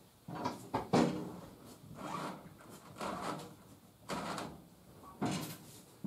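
A VEVOR portable electric winch hauling a car in on its cable, heard as a row of sudden clunking, sliding sounds about once a second, each fading quickly.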